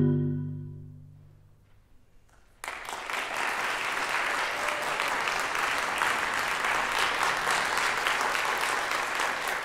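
The final chord of a Marimba One marimba rings out and dies away, followed by a brief hush. Audience applause then breaks out suddenly about two and a half seconds in and keeps going steadily.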